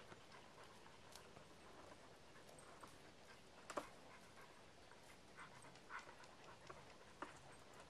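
Near silence, with a few faint, irregularly spaced clicks, the clearest just before four seconds in.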